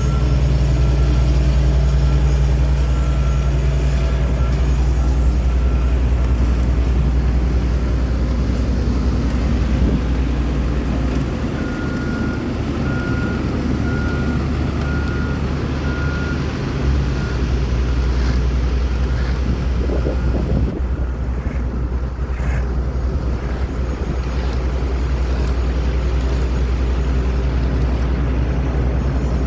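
Engines of heavy asphalt-paving machinery running steadily, with a reversing alarm beeping in two spells, at the start and again about twelve seconds in.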